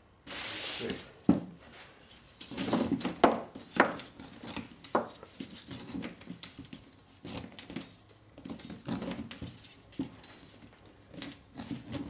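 A 17-foot steel mainspring being wound by hand into a phonograph motor's spring barrel: irregular scraping, clicking and clattering as the steel coils slide against the barrel and knock against each other.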